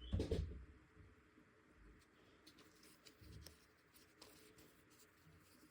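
Soft handling noises as jewellery and its packaging are moved about: a short rustle right at the start, a fainter one about three seconds later, and scattered light clicks, otherwise quiet.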